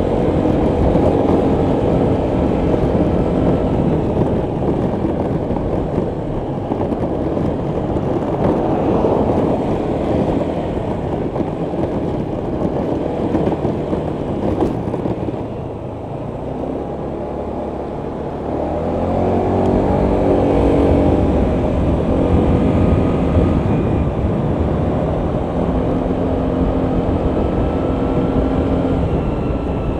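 Honda PCX 125 scooter's single-cylinder engine running on the move, with steady road and wind noise. It eases off about halfway through, then rises in pitch as the scooter accelerates again.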